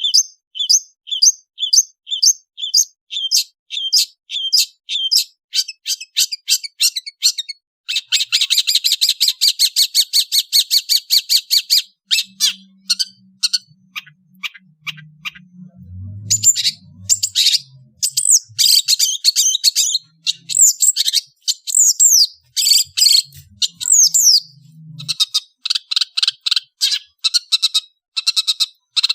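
Long-tailed shrike (cendet) singing a varied song. It opens with a run of repeated sharp chirps, breaks into a fast dense trill about eight seconds in, then moves on to varied phrases with rising and falling whistled glides, and ends with quick repeated notes.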